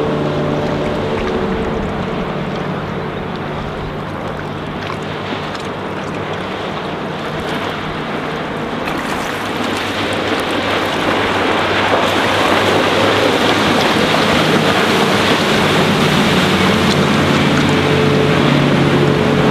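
Sportsboat's 220 hp MerCruiser 4.3-litre V6 fuel-injected sterndrive running at speed. Its engine note fades as the boat pulls away, then the rush of hull and spray grows louder as it swings back in close, with the engine note returning near the end.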